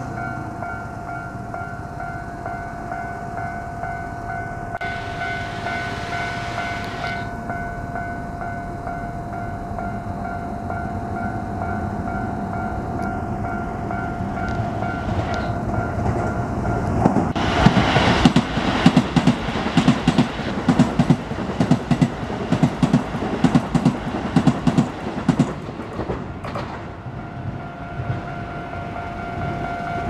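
Japanese railway level-crossing warning bell ringing steadily. About seventeen seconds in, a Keisei Main Line train passes over the crossing, its wheels clattering rhythmically over the rail joints for about ten seconds. This clatter is the loudest part and drowns out the bell, which is heard again near the end.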